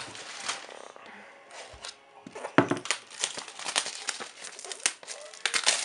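Packing material and cardboard crinkling and rustling as hands rummage in a shipping box, with a quick run of crackles starting about two seconds in.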